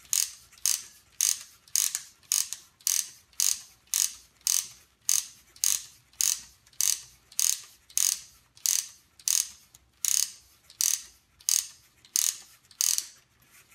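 Wooden ratchet of a Ugears Truck UGM-11 mechanical model being wound up by hand, charging its rubber-band motor. There are about 25 even winding strokes, roughly two a second, each a short rasp of ratchet-and-pawl clicks.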